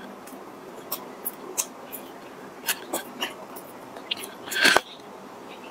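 Close-miked chewing of a soft steamed bun (mantou), with many short wet mouth clicks and smacks scattered throughout. One louder, longer mouth noise comes about four and a half seconds in.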